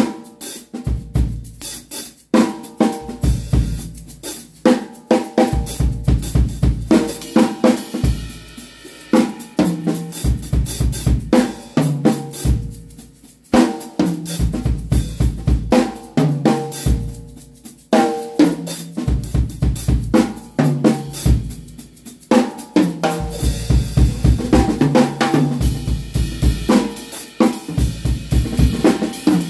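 Acoustic drum kit played in busy phrases of a few seconds with short breaks between: kick drum, snare, toms and cymbals. The steel jingles of a stick-mounted tambourine rattle along with the stick strokes.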